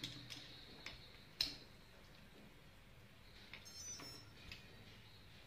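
A few sharp clicks and light taps from handling a battery's XT60 plug and a brushless motor's wiring, the loudest about one and a half seconds in. A faint steady high tone runs underneath.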